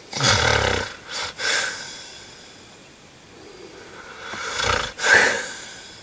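A man snoring in his sleep: a loud rattling snore right at the start, followed by two shorter breaths, then another snore that builds up and peaks about five seconds in.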